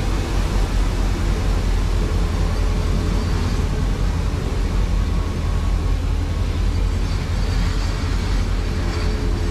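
Freight train cars rolling past: a steady rumble of steel wheels on the rails.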